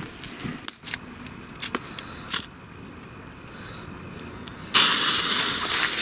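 A bonfire of burning sticks crackling with scattered sharp pops. About three-quarters of the way in, a newly lit firework on the ground starts with a sudden loud hiss as it spits sparks, and the hiss keeps going.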